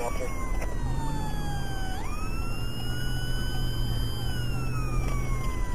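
Police siren wailing: a slowly falling tone that jumps sharply back up about two seconds in and then sinks slowly again, over a steady low hum.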